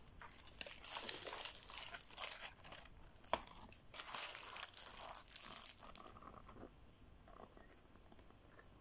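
Paper burger wrapper crinkling and rustling in the hands as it is folded back from the burger, in irregular bursts that die down after about six seconds, with one sharp click about three seconds in.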